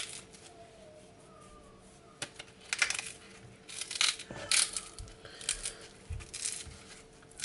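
Green plantain being peeled by hand over a stainless steel sink: scattered scratchy scrapes and tearing of the stiff skin, with a few sharp clicks, mostly from about two seconds in.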